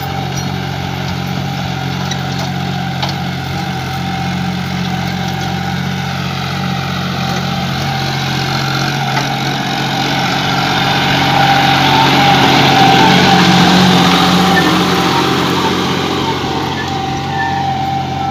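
John Deere 5050D tractor's three-cylinder diesel engine running steadily under load at about 1750 rpm in fourth gear while tilling. It grows louder a little past halfway as the tractor comes close, then eases off.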